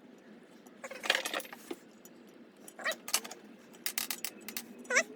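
Steel roller bearing rollers and their cage from a 1957 Harley-Davidson flathead engine clinking and rattling as they are handled loose. The rollers are coming apart from the cage instead of staying together as one piece. A cat meows briefly near the end.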